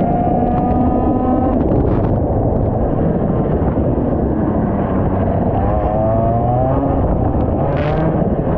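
IAME X30 125cc two-stroke kart engine running at speed, its pitch climbing as it accelerates near the start and again in the second half, under a dense rumble on the onboard microphone. A short click comes about two seconds in and another near the end.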